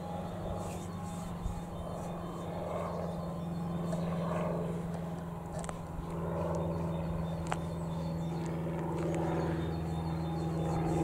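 Diesel freight locomotive engine running with a steady low drone, growing a little louder near the end, with a few faint clicks.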